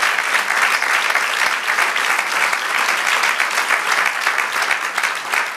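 Church congregation applauding: many hands clapping together in a steady, dense patter.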